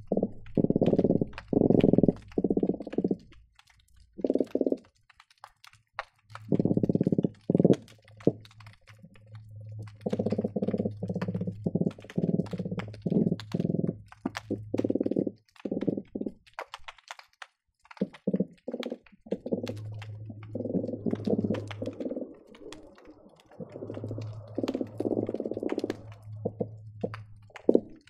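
Croakers drumming underwater, picked up by hydrophones: overlapping bursts of rapid, low, rumbling pulses, each lasting one to several seconds, with brief lulls between them. Sharp clicks are scattered throughout.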